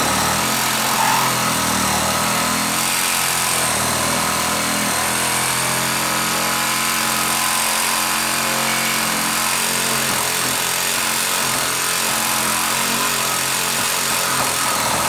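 DeWalt Atomic DCS369 20V brushless compact reciprocating saw running steadily under load, its blade cutting through a wooden 2x4 board.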